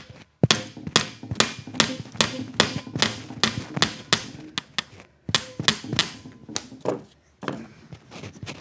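A hammer striking metal again and again, about two and a half ringing blows a second, in two runs with a brief pause between them.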